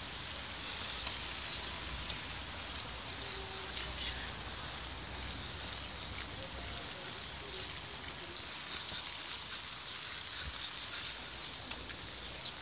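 Steady rain falling on wet stone paving, a continuous even hiss, with faint voices of passers-by.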